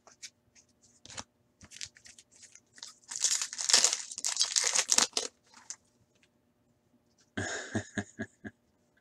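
Foil wrapper of a trading card pack being torn open by hand: a crinkling tear starting about three seconds in and lasting about two seconds. Near the end there is a shorter burst of crinkling as the cards and wrapper are handled.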